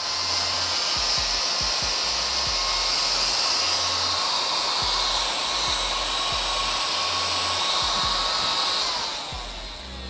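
Battery-powered mini desk vacuum cleaner's small motor and fan running: a steady whine with a rushing hiss of air. It reaches full speed right at the start and winds down near the end. Loud for such a small device.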